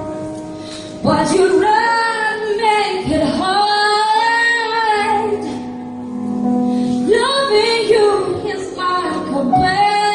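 A woman singing long, wavering notes with a live band, with steady bass notes underneath. A phrase starts about a second in, breaks off around the middle, and a second phrase follows.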